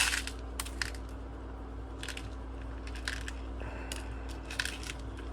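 A plastic case of small laptop screws being handled: scattered sharp clicks and short rattles and scrapes as the tiny screws and the plastic box knock together, over a steady low hum.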